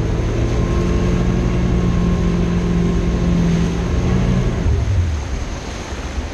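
Cobalt speedboat's engine running steadily at towing speed under the hiss of wake water rushing past the stern. About four and a half seconds in, the engine note falls away, leaving mostly water and wind noise.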